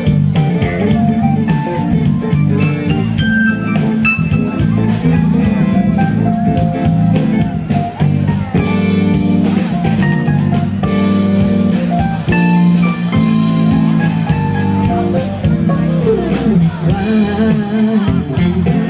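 Live band music with guitar and drums.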